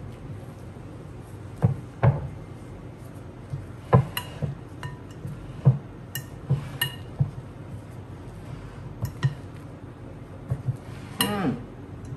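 Silicone spatula on a wooden handle knocking and scraping against the sides of a glass mixing bowl while folding whipped cream into a thick filling, giving about a dozen irregular clinks.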